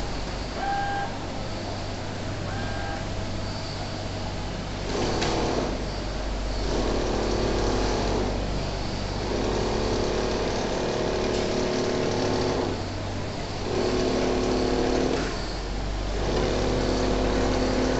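Single-needle automatic quilting machine running over a steady low hum, its motors whining in spells of one to three seconds that start and stop again as the sewing head stitches. There are two short high tones in the first three seconds.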